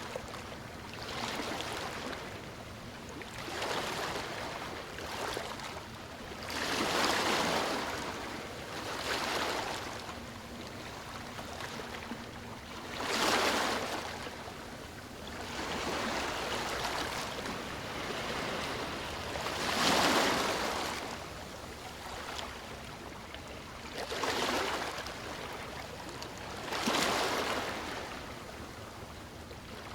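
Sea waves washing onto a shore: surges of surf that swell and fade every few seconds over a steady wash, the biggest about seven, thirteen, twenty and twenty-seven seconds in.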